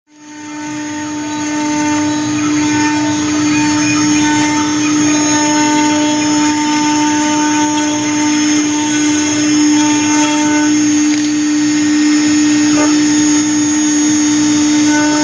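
CNC milling machine spindle running steadily while carving a 3D shape: a constant motor whine with cutting noise, rising in over the first second.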